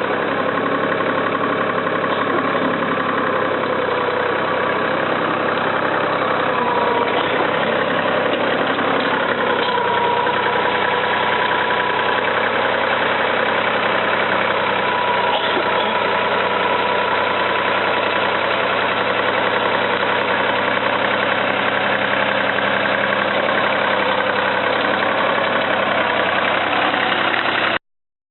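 Tractor engine running steadily, pulling the garlic digger; the sound cuts off suddenly near the end.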